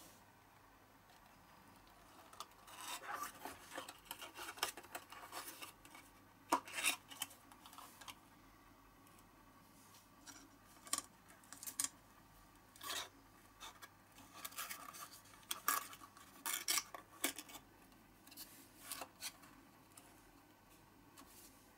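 Small cardboard Matchbox toy boxes being handled: card flaps folding, scraping and tapping, in irregular crisp scratches and clicks.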